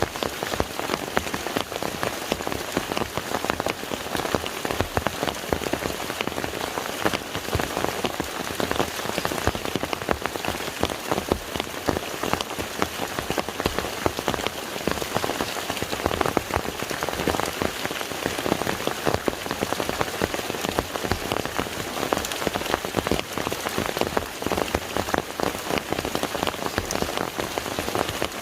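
Steady rain falling on a lake's water surface: a dense, even patter of countless drops.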